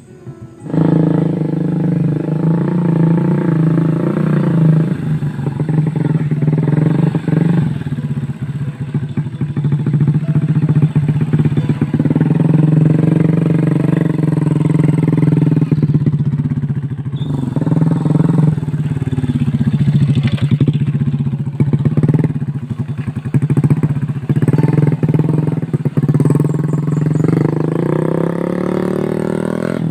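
Small motorcycle engine running steadily under load, with clattering knocks from the bike over the engine note. It starts abruptly about a second in.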